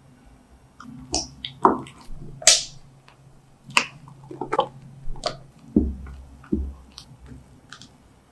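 Silicone spatula and whisk knocking and scraping against glass mixing bowls as thick batter and whipped cream are poured, scraped in and folded: a run of irregular sharp clicks and wet squishes, with two dull thumps about six seconds in.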